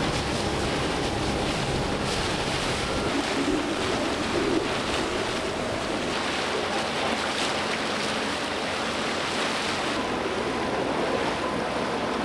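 Inflatable dinghy underway at speed: its outboard motor running under a steady rush of water along the hull and wind on the microphone.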